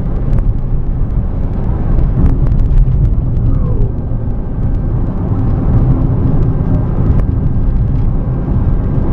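Car driving along a country road, heard from inside the cabin: a steady, loud low rumble of engine and road noise, with a few sharp clicks and knocks here and there.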